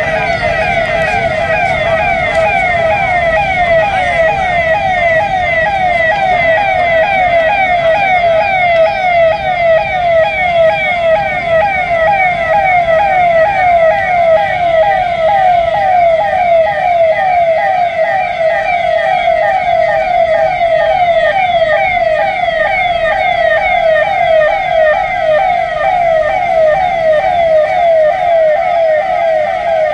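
Electronic police siren sounding continuously in a fast, repeating pattern of pitch sweeps.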